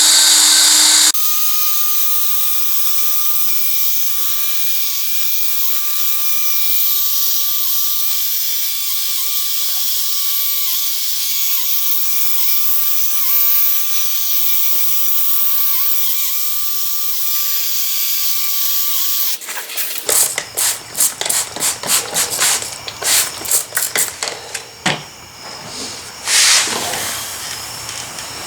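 Power drill spinning a 3000-grit sanding disc against a plastic headlight lens, running at a steady speed with a constant whine, stopping about 19 seconds in. A run of short, irregular bursts follows.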